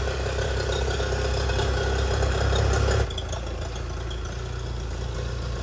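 25 hp Mercury outboard running steadily after a carburettor rebuild and new fuel pump, no longer dying without the primer bulb being pumped. About three seconds in, the sound drops suddenly to a quieter, steady run.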